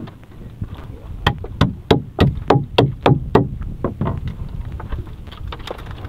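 A wet fishing net being hauled in by hand over a boat's gunwale: a quick, even run of sharp knocks and slaps, about three a second, in the middle, with scattered fainter knocks around it over a low rumble.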